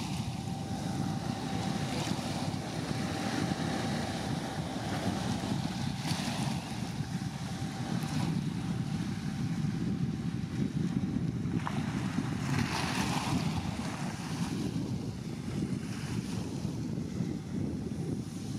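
Wind buffeting the microphone in a steady low rumble, with a few brief gusts and a faint steady hum that stops about twelve seconds in.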